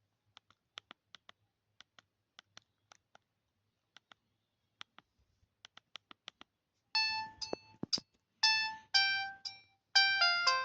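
Several seconds of faint, scattered clicks, then a Samsung B130 mobile phone ringtone starts about seven seconds in: a quick electronic melody of short, bright notes, several sounding together.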